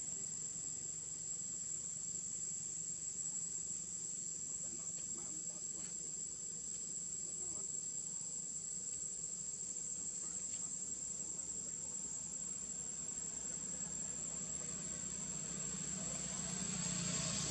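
Steady, high-pitched insect drone, with a few faint ticks over it; the background grows a little louder near the end.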